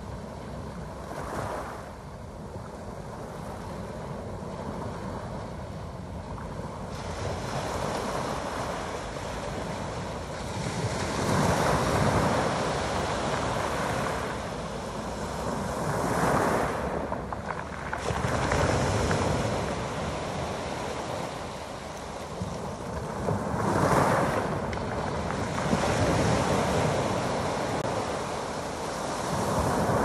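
Small sea waves breaking and washing up over a pebble beach, swelling and fading in surges every few seconds.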